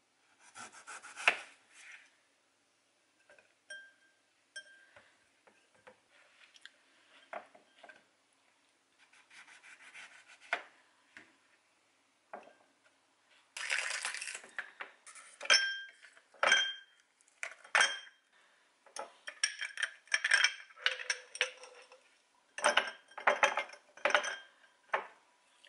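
A knife cutting fruit on a plastic cutting board, in short scattered knocks. Later, fruit slices and ice cubes clink and knock into a drinking glass, with a brief ring from the glass, busiest near the end.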